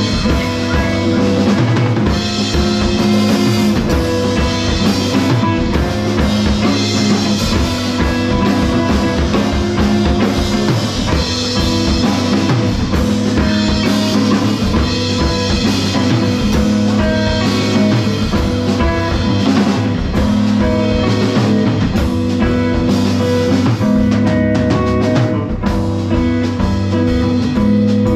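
Live instrumental band of drum kit, guitar and coral harp: the drum kit plays a busy beat of kick, snare and rim hits over steady held notes that run on without a break.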